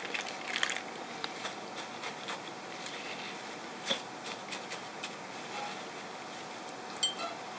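Crushed cornflakes crackling and rustling as a gloved hand presses chicken into them in a glass bowl, with a few sharper clicks about four seconds in and near the end.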